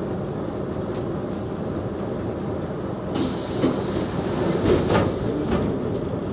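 Mercedes-Benz O345G articulated bus's diesel engine idling steadily. About three seconds in, a high hiss sets in, with a few sharp clicks and knocks over the next couple of seconds.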